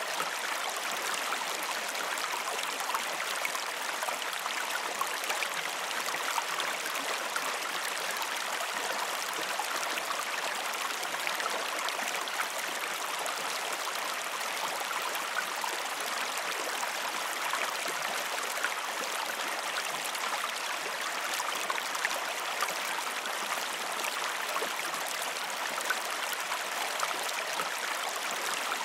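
Creek water running steadily, an even rush with small gurgles and no pauses.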